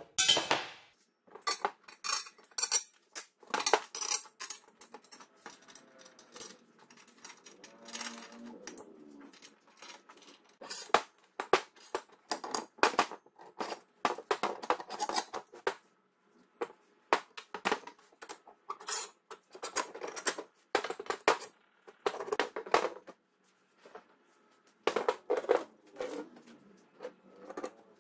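Steel parts clinking and knocking: a square-tube frame and an axle with sprockets and bearing blocks being handled and fitted together on a wooden workbench. Irregular clinks and knocks come in bunches with short pauses between.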